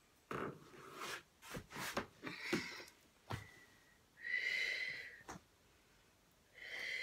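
A person breathing out forcefully and audibly, once for about a second a little past the middle and again near the end. Before that come rustles and a few light knocks as the body shifts down onto the floor.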